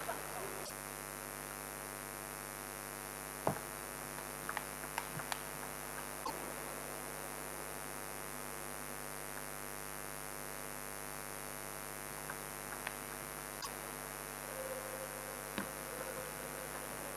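Steady electrical mains hum with a buzzy stack of overtones, broken by a few scattered sharp clicks, with a small cluster of them about four to five seconds in.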